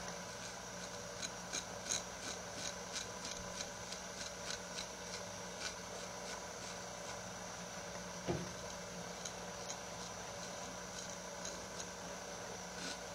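A freshly sharpened steel knife blade scraping through beard hair in short shaving strokes: a run of crisp little scrapes and ticks, close together at first and sparser later, over a steady hum. One duller knock about eight seconds in.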